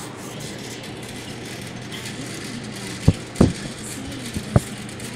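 Three sharp knocks from handling a children's cardboard jigsaw puzzle, two close together about three seconds in and one more a second later, over a steady low hum.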